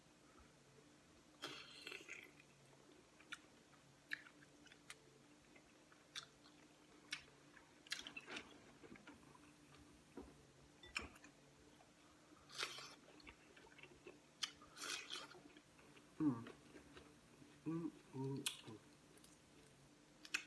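A person chewing and smacking on peeled crawfish and shrimp, with scattered small clicks and crunches of shells being picked apart by hand. A few short hums come near the end.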